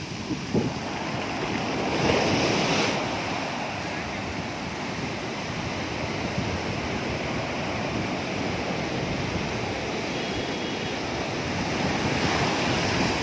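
Sea surf washing onto a beach in a steady rush, swelling louder as a wave breaks about two seconds in and again near the end.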